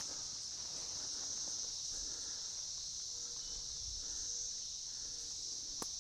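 Steady, high-pitched chorus of insects in the woods, with one sharp snap near the end.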